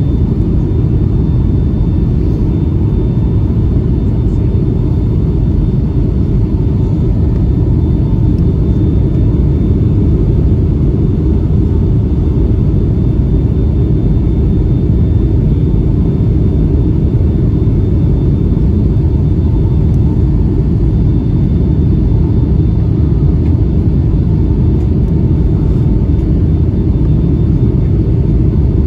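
Steady cabin noise of a Boeing 757-300 in flight, heard from a window seat: a loud, even rumble of engines and airflow, with a faint steady high whine above it.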